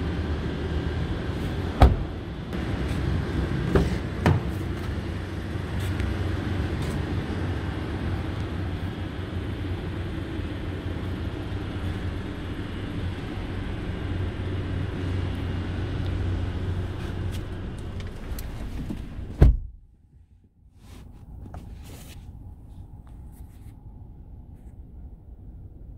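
A steady low rumble with a hum in it, and a couple of knocks, ends in a heavy car-door thud about three-quarters of the way through. After the thud the rumble is much quieter and muffled, as heard from inside the closed cabin of the Hyundai i20.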